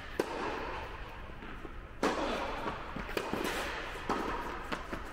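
Tennis rally: sharp racket-on-ball hits and ball bounces, about half a dozen, the loudest about two seconds in, each ringing on in the echo of a large indoor tennis hall.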